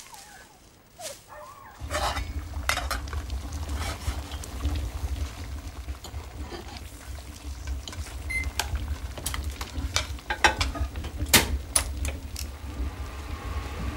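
Kitchen clatter: dishes and cutlery clinking and knocking in a string of sharp clicks over a steady low hum. The loudest knocks come near the end, as a microwave oven door is handled.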